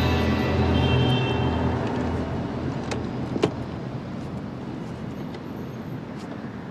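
A low synth film score fading out over the first second or two, giving way to city street background of passing car traffic, with a few faint clicks and one sharp knock about three and a half seconds in.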